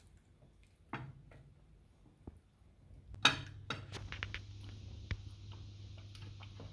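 Cutlery clinking against a plate while the grilled fish is eaten: a few sharp clicks, the loudest about three seconds in. A steady low hum with hiss sets in about four seconds in.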